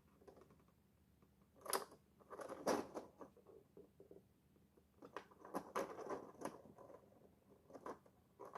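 Faint, scattered clicks and scrapes of small 3D-printed plastic scales being handled and pressed while an end-piece arm is melted into place.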